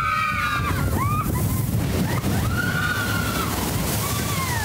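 A log flume boat rumbling through water, with a steady sloshing wash. Over it come long high calls or sung notes that rise and fall: one at the start and a longer one from about two seconds in.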